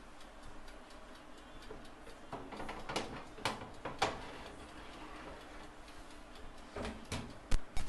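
Sporadic light clicks and knocks of a baking tray and oven being handled as the tray of seared lamb chops goes into the oven: three clicks about half a second apart around the middle, then a louder pair near the end.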